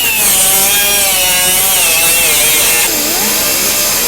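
Die grinder with a cut-off wheel cutting through the steel reinforcing wire inside a car fender's rolled edge: a loud, high whine whose pitch wavers and sags as the wheel bites under load, dipping most about three seconds in.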